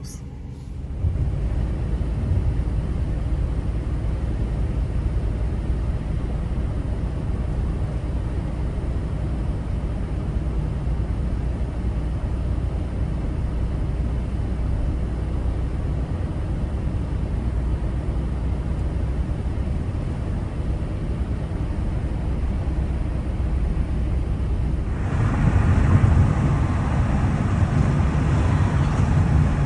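Steady low rumble of a van's engine and road noise, heard from inside the cabin; it grows louder and fuller near the end.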